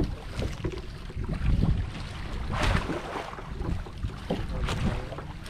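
Wind buffeting the microphone with an uneven low rumble, over which come a few sharp knocks and splashes.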